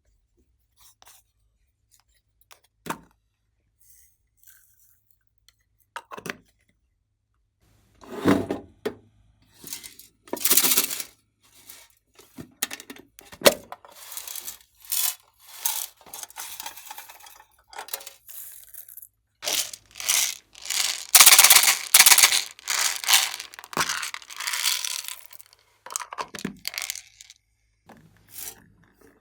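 Glossy slime being handled, stretched and squished by hand, with a few faint clicks at first and then, from about eight seconds in, repeated bursts of crackling and tearing that are thickest near the middle of the second half.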